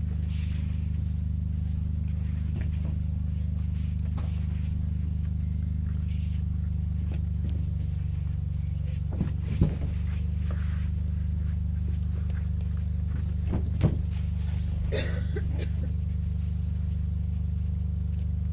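A steady low hum throughout, with bare-bodied thuds of a dancer landing on and moving across a plywood stage floor, the two loudest about halfway through and again some four seconds later.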